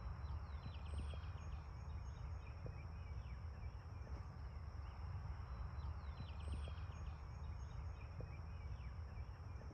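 Faint outdoor ambience: a steady low wind rumble, with a bird singing the same short song twice, about a second in and again about six and a half seconds in, over a steady high insect-like whine.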